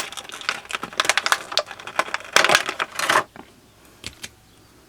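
Small plastic and metal Beyblade parts clicking and rattling as they are handled and pulled apart, with a quick run of sharp clicks for about three seconds, then one more click a second later.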